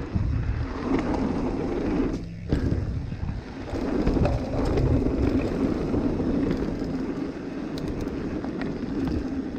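Mountain bike riding down a dirt trail: the tyres rumble over the dirt, with occasional short rattles and clicks from the bike, and wind buffets the camera microphone.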